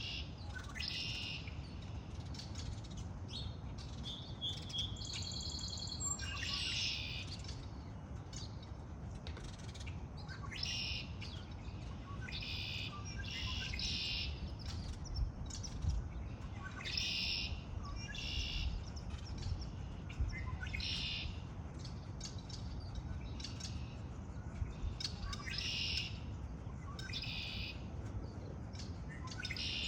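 Several birds singing and chirping in short repeated phrases every second or two, one with a quick trill, over a steady low background rumble.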